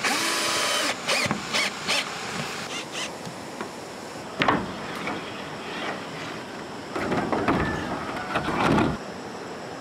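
A power drill whines steadily for about a second, then scattered clicks and knocks of hand work follow, with a sharp knock about halfway through.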